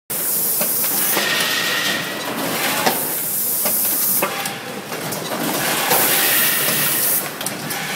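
Pneumatic packaging machinery running: three hissing blasts of compressed air, about a second each and each starting with a click, over steady machine clatter.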